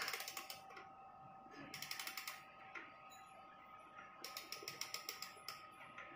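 Key winding the mainspring of a 70–80-year-old spring-driven pendulum wall clock with brass works: the ratchet and click clatter in quick runs of clicks, about four short runs as the key is turned.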